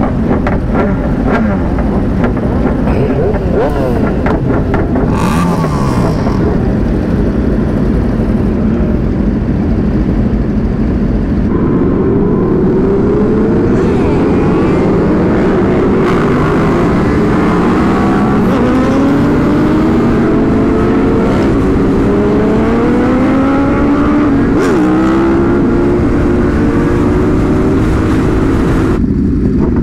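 A crowd of sport motorcycles idling and revving together. Then one sportbike accelerates hard on the road, its engine pitch climbing and dropping back again and again as it shifts up through the gears, with wind noise on the microphone.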